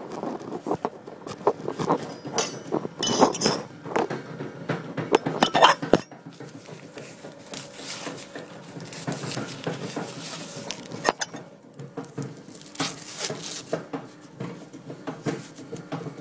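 Green corn husks being peeled and torn off a strawberry popcorn cob by hand: irregular rustling, crackling and tearing, close to the microphone, with bursts of handling knocks. A bread machine hums steadily underneath.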